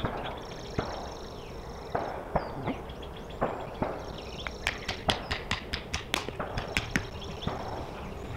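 A series of sharp knocks off camera, scattered at first, then a quick run of about four a second in the middle.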